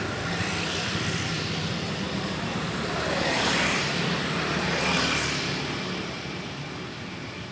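Road vehicles passing close, engine and tyre noise swelling twice, about three and five seconds in, then fading away.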